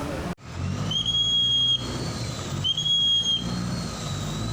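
A pea whistle blown twice in short, shrill blasts about a second apart, each rising briefly and then held, over a low rumble. On the Chao Phraya river boats such whistle blasts are the crew's signals to the pilot.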